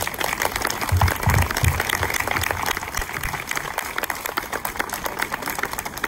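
Audience applauding, a dense patter of many hands clapping, with a few low thumps about a second in.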